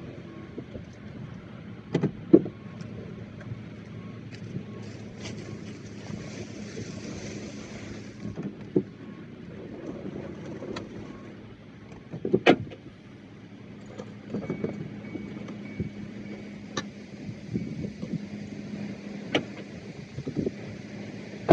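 John Deere 9660 STS combine's six-cylinder diesel running steadily as it harvests corn, a constant drone with a steady hum. Several sharp clicks or knocks stand out above it, the loudest about two seconds in and near the middle.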